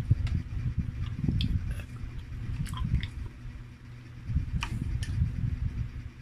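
Close-miked chewing and biting of grilled chicken (chicken inasal), with several short, sharp clicks over a steady low rumble.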